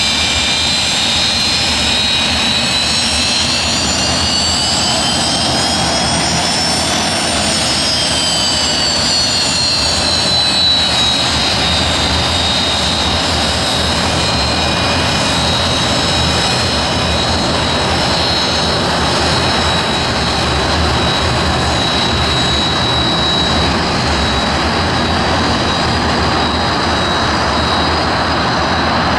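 Rolls-Royce Avon turbojets of an English Electric Canberra running as the jet taxis, a loud steady whine over a rumble. The high whine rises in pitch about a third of the way in, falls back, then holds steady.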